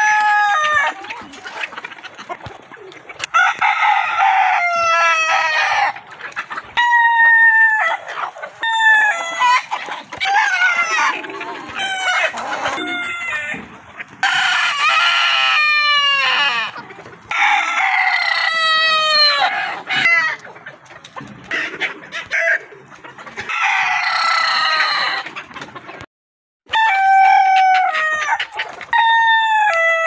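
Several roosters crowing one after another, a dozen or so crows, some overlapping, with hens clucking in between. Near the end the sound drops out for a moment.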